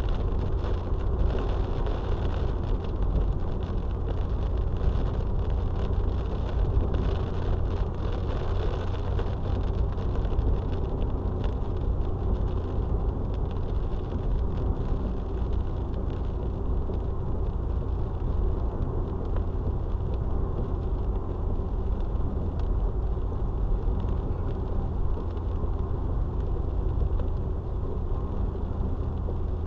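Steady road noise of a moving car heard from inside the cabin: a low, even rumble of engine and tyres.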